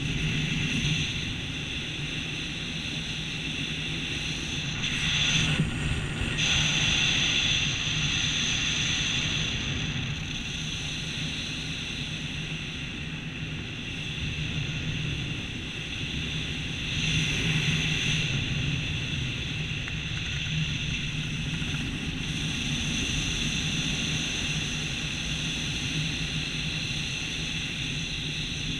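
Wind rushing over the camera of a skydiver under an open parachute canopy: a steady airflow noise with a steady low hum and high tones in it, swelling louder twice, about 5 seconds in and again about 17 seconds in.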